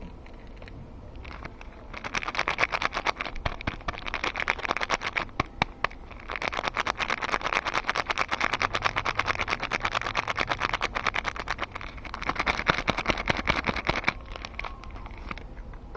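Soap packaging being unwrapped by hand: rapid crinkling and crackling of the wrapper in three long stretches with brief pauses, quieter handling at the start and end.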